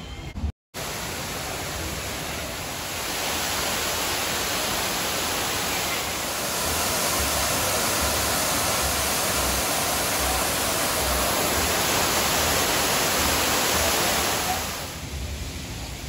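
Waterfall pouring into a rock pool: a steady rush of falling water that grows louder a few seconds in and fades near the end.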